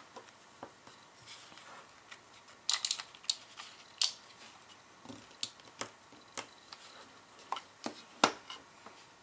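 Scattered sharp clicks and taps of a handheld craft glue-dot dispenser being pressed down to lay glue dots on burlap over a cutting mat, with a quick run of clicks about three seconds in and the loudest single click near the end.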